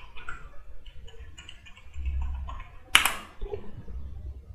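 Computer keyboard keys being typed in a quick run of light clicks, then one louder, sharper keystroke about three seconds in as the password is entered.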